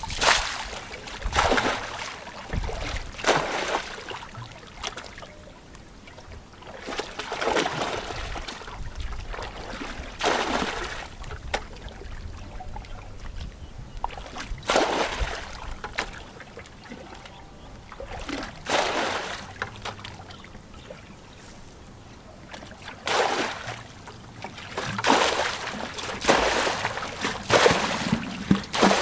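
Shallow muddy water splashing and sloshing as hands and feet churn and scoop through it, in irregular bursts every few seconds with quieter gaps, the bursts coming thicker near the end.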